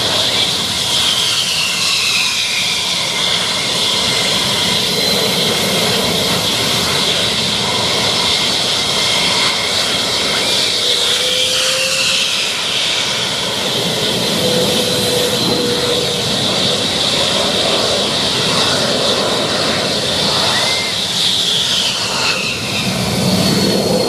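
USAF Thunderbirds F-16 jet engines running as the jets taxi, a steady loud rush with a high whine that falls in pitch a few times.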